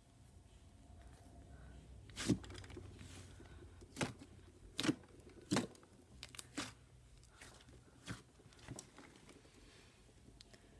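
Slime being squeezed and stretched by hand, giving about half a dozen sharp, irregular pops and crackles.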